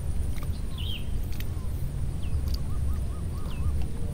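Open-air ambience: a steady low rumble with small birds calling over it. In the second half come several short, falling chirps and a quavering, warbling whistle.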